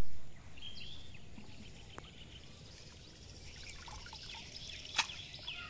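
Water splashing right at the start, then trickling and dribbling as hands work in shallow water around a clay pot. Small birds chirp repeatedly throughout.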